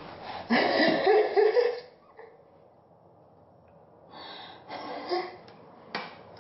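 A woman's loud, breathy gasp-like vocal burst lasting about a second and a half, then quiet, then softer breathy noises and a sharp click near the end.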